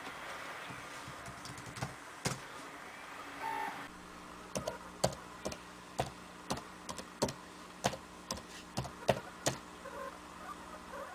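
Laptop keys being pressed: slow, irregular clicks, about one or two a second, over a low steady hum.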